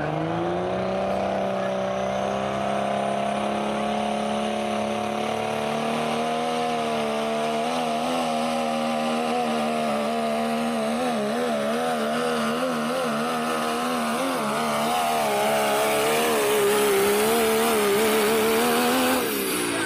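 Diesel pickup truck engine under full load in a pull. It revs up quickly at the start and holds at high revs, the pitch wavering up and down through the middle. It grows louder in the last few seconds, then the revs drop off suddenly near the end.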